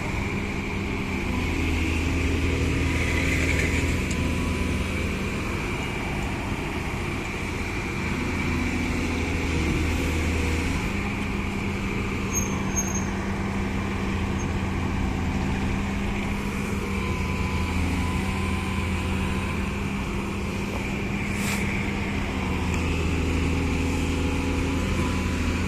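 Diesel engine of a hydraulic excavator running steadily while it digs, its note swelling and easing in spells as the load changes.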